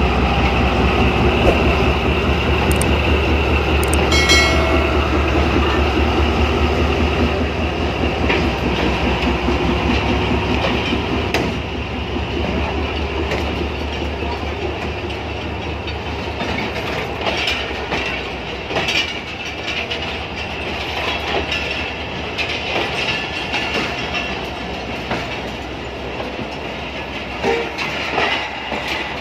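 Pakistan Railways ZCU-30 diesel locomotive's engine running with a deep drone as it pulls the train out slowly; the drone fades after about ten seconds as the locomotive moves on. Passenger coaches follow, rolling past with wheels clacking over the rail joints, and a brief high-pitched tone sounds about four seconds in.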